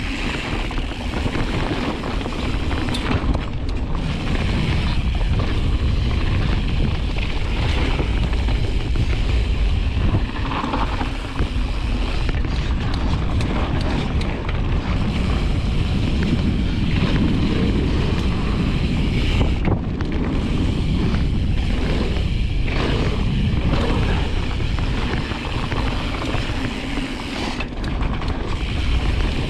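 Wind rushing over an action camera's microphone together with the tyres of a 2021 Specialized Status 160 mountain bike rolling fast over a dirt trail. Scattered knocks and rattles come from the bike going over bumps.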